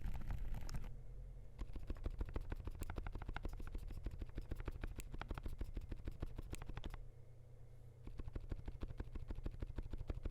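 Fast typing on a Zuoya LMK81 mechanical keyboard with lubed DUROCK Dolphin silent linear switches, PBT keycaps and a polycarbonate plate: a rapid run of keystrokes, pausing for about a second around seven seconds in.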